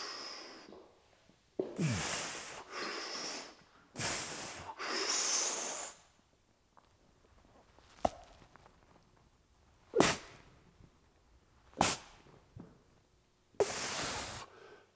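A lifter breathing hard through a set of seated behind-the-neck barbell presses: several long forceful breaths, then three short sharp exhalations about two seconds apart, one with each rep, and a final long breath near the end.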